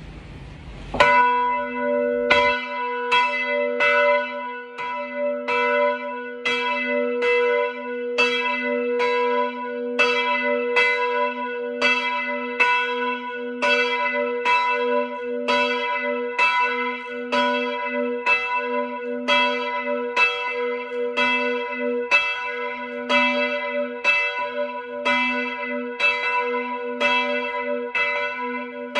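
Church bell rung by hand with a rope, calling the faithful to Mass. It starts about a second in and strikes steadily about one and a half times a second, each stroke ringing on under the next.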